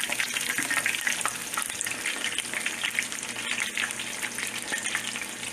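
Beer-battered chicken pieces deep-frying in hot grease: a steady, dense crackling sizzle.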